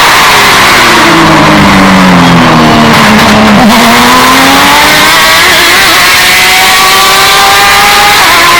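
Porsche 911 RSR's flat-six racing engine: its pitch falls as the car slows for a corner, then climbs steadily under acceleration, with an upshift near the end. The audio is very loud and bass-boosted to the point of distortion.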